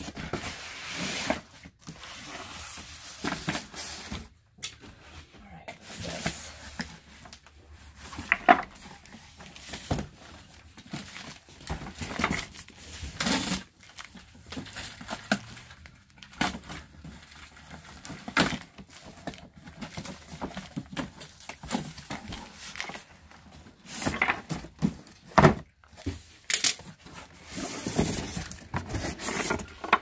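Cardboard boxes being unpacked and opened: a box cutter slitting packing tape, cardboard flaps tearing and scraping, and packing wrap crinkling. Scattered knocks come from boxes being handled.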